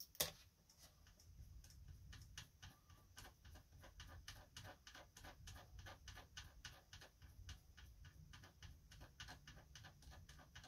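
Japanese-made Lincoln class 15 vintage sewing machine turned by hand at the hand wheel, its freshly oiled bobbin winder mechanism clicking faintly and evenly about three or four times a second. A single sharper click comes just after the start.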